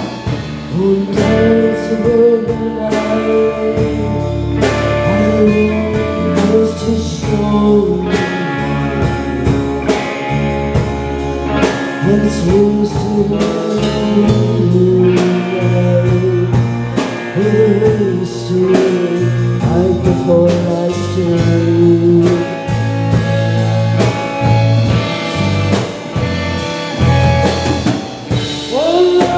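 Live band playing: a woman singing over two electric guitars, bass guitar and a drum kit.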